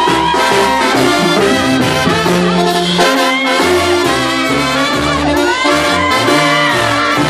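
Live banda brass band playing an instrumental passage: a sousaphone bass line stepping under trumpets and other horns, with no singing.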